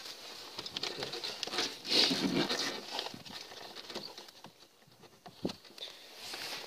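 Opel Astra G's plastic air filter housing being handled and pressed shut: irregular plastic rustling and scraping with scattered clicks, loudest about two seconds in, and a sharp click near the end.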